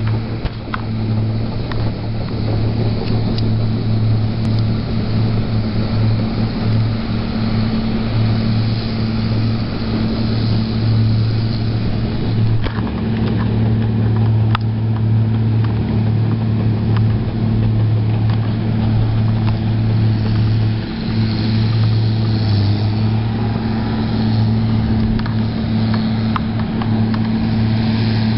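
Caterpillar D6R XW bulldozer's diesel engine running steadily with a constant low drone, dipping briefly about three-quarters of the way through.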